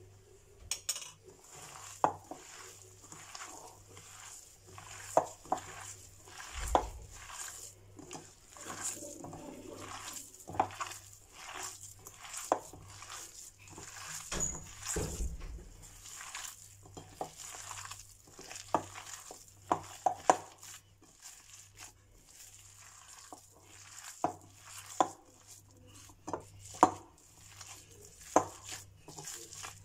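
A hand kneading and squeezing a minced meat kofta mixture in a glass bowl: soft, uneven squishing, broken by irregular sharp knocks and clicks against the glass.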